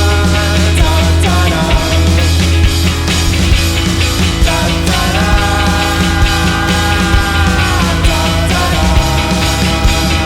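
A rock band playing live: a steady drum beat under long held notes that slide in pitch about halfway through and again near the end.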